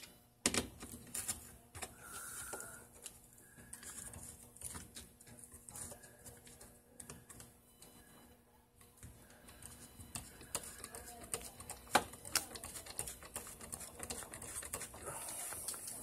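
Hand screwdriver turning a screw into the wall mount of a fire alarm cellular communicator: scattered small clicks and scrapes, with one sharper click about twelve seconds in.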